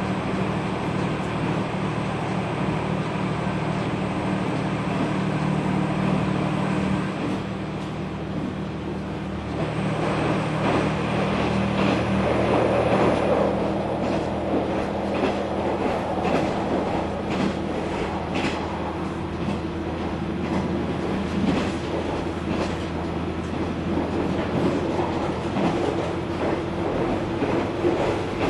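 KiHa 120 diesel railcar running, heard from inside the car. For the first ten seconds or so the engine's steady hum is to the fore. It then drops back as wheel-on-rail running noise grows, and rail-joint clicks come at uneven spacing from about fourteen seconds on.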